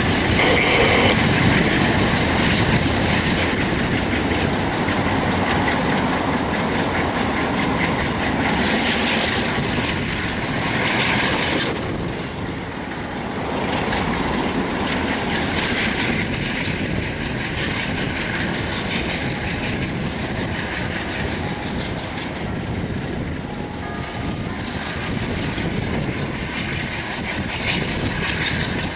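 Diesel-hauled freight train rolling past, with its wheels clicking over the rail joints under a steady rumble of locomotive engines and cars.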